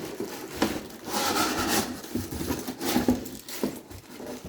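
Rubbing and scraping with a few short knocks as the parts and packaging of a boxed pressure-washer surface cleaner are handled and unpacked.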